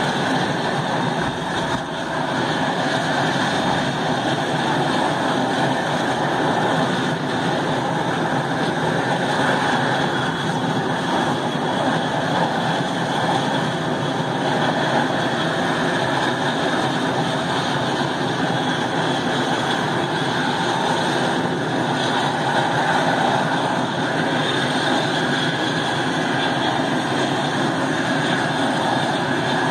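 Engine of a single-engine firefighting plane running steadily on the ground, a constant loud rush with a faint high whine.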